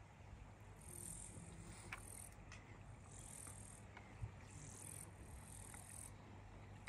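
Near silence: faint outdoor ambience with a low steady hum, a soft high hiss that comes and goes about once a second, and a few light clicks.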